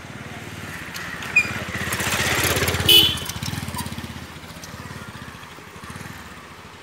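A small motorcycle engine passing close by: it grows louder, goes past about three seconds in with a brief sharp knock at its loudest, then fades as the bike rides away.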